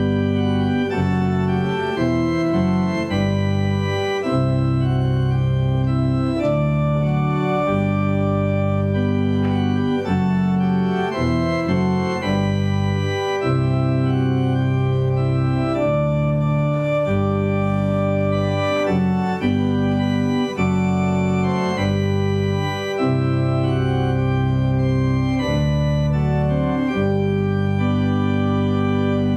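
Organ music starting abruptly: held chords over a moving bass line, the notes changing every second or two.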